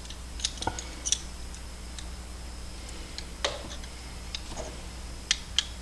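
Scattered light metallic clicks and taps as the NEMA 34 stepper motor and its belt-drive parts are handled and adjusted, over a steady low hum.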